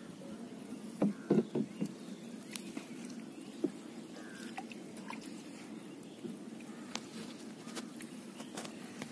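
Cast net being hauled and shaken out over the side of a wooden boat: scattered knocks and clicks of the net and its weights against the hull, with a cluster of louder knocks about a second in, and small fish dropping off into the water.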